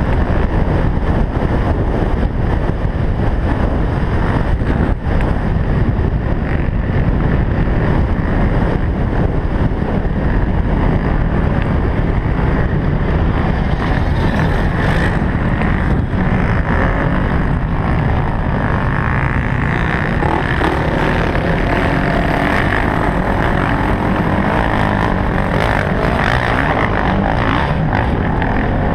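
Polaris Sportsman 570 utility quad's single-cylinder engine running under load at speed, with heavy wind buffeting on the microphone.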